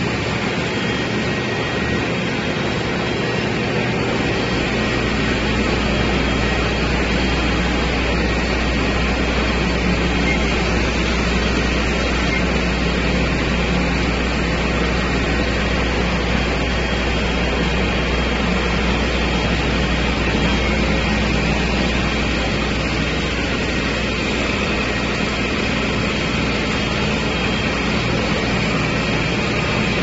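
Walk-behind concrete floor grinder grinding a concrete floor while a 4.0 kW three-phase industrial dust extractor sucks up the dust through a hose: a loud, steady machine roar. A deep low hum joins about four seconds in.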